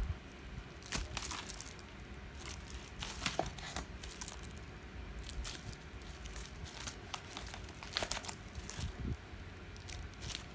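Bubble-wrap packaging crinkling as it is handled, in irregular sharp crackles.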